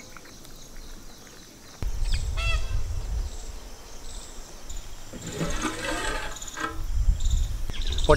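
Outdoor ambience: wind rumbling on the microphone, starting suddenly about two seconds in, with birds calling in short bursts a few times over it.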